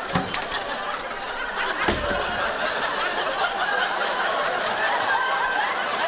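Studio audience laughing throughout, with a thud just after the start and a heavier thud about two seconds in.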